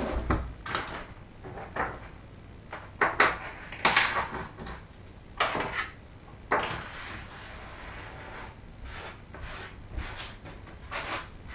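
Irregular clicks, knocks and short rustles of hands handling wires and plastic parts during wiring work, about ten separate handling sounds spread unevenly.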